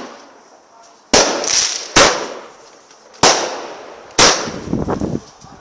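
Fireworks going off: four sharp bangs roughly a second apart, each fading out in a short echoing tail.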